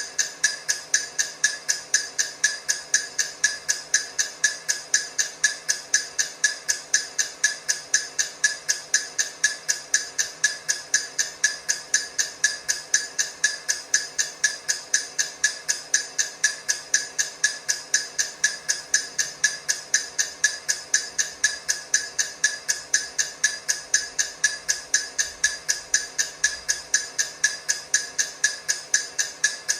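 Countdown timer ticking: a fast, steady, even run of sharp clock-like ticks.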